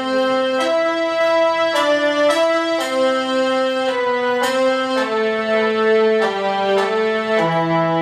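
Slow instrumental melody of long held notes on an electronic keyboard, a lower line moving along beneath it, played as music for a minute of silent remembrance.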